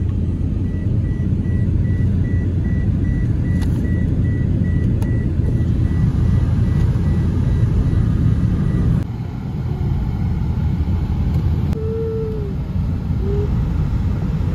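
Car driving, a steady low road and engine rumble heard from inside the cabin. For most of the first two thirds a car's electronic warning chime beeps quickly and evenly, then stops abruptly; two short tones sound near the end.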